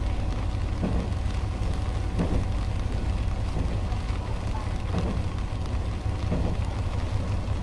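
Ibara Railway IRT355 diesel railcar running along an elevated line, heard from inside the cab: a steady low rumble of engine and wheels on rail, with a soft knock about every second and a half.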